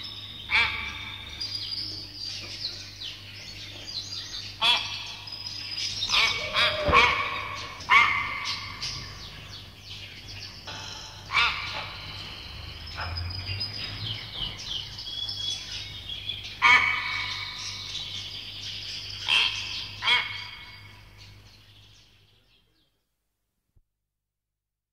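Birds calling, with repeated sharp, harsh calls and chirps over a low steady hum, fading out near the end.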